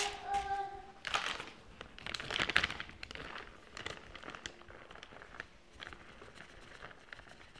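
Plastic bag of shredded cheddar crinkling as it is picked up and handled, loudest between about one and three seconds in, then fainter scattered rustles.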